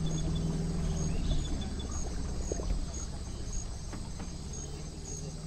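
Insects chirping in an even rhythm, about two chirps a second, over a low steady hum.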